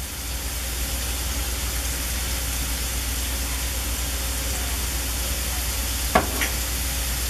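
Chopped onion and garlic sizzling steadily in olive oil in a frying pan as they are sautéed, with a low steady hum underneath and a brief click about six seconds in.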